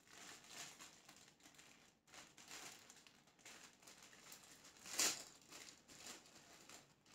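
Clear plastic packaging crinkling and rustling faintly as a baby garment is handled and pulled out of it, with one louder crinkle about five seconds in.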